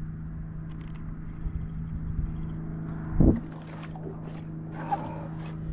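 Small Suzuki outboard motor on a kayak running at a steady speed, an even low hum. A short, loud thump comes about three seconds in.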